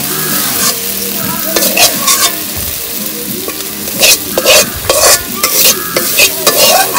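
Metal spoon stirring and scraping tomatoes and greens in a metal wok over a steady sizzle of frying oil. Quick, sharper scrapes of the spoon against the pan come from about four seconds in.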